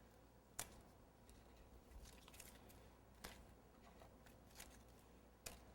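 Faint handling of double-sided tape: a few short, sharp ticks and light crinkles as the tape is pulled and pressed on, over near silence.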